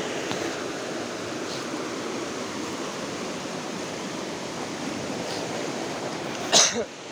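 Fast-flowing river water rushing steadily. A short, loud burst of noise comes near the end.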